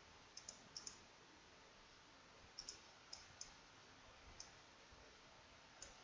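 Faint computer mouse button clicks, about ten, some in quick pairs, over near-silent room tone.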